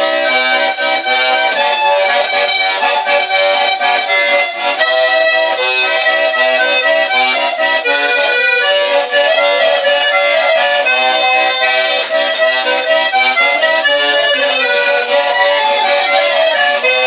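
Organetto, a diatonic button accordion, played solo: a quick, unbroken tune with the melody over a repeating bass-and-chord accompaniment.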